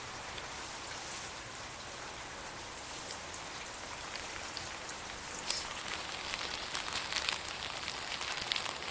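Heavy rain falling steadily, an even hiss with individual drops tapping. From about halfway through, sharper taps come more often, the first of them the loudest.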